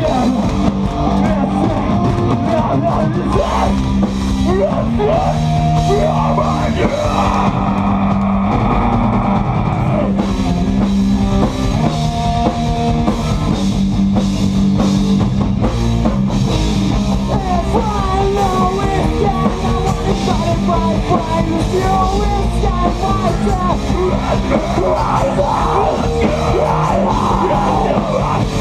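A rock band playing live and loud, with drum kit and distorted electric guitars, recorded in a small pub.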